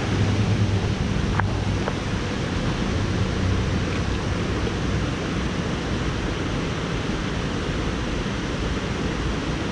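Steady rush of water pouring over a dam's man-made waterfall, an even, unbroken roar.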